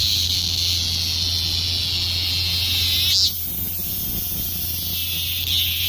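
Korean robust cicada (Hyalessa fuscata) singing: a long, steady, high-pitched buzzing drone that ends with a short swell about three seconds in. A quieter buzz follows and grows louder again near the end. A low steady hum runs underneath.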